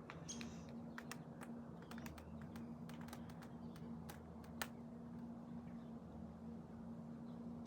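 Faint, irregular sharp clicks and ticks, one louder than the rest about halfway through, over a low steady hum.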